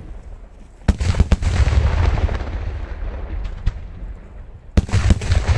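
Daylight fireworks shells bursting in the air: a quick cluster of sharp bangs about a second in and another near the end, each trailing off into a long low echo.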